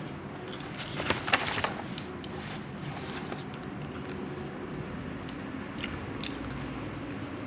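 Close-up biting and chewing of crispy fried chicken, with a burst of crisp crunches about a second in, then quieter chewing with scattered small clicks.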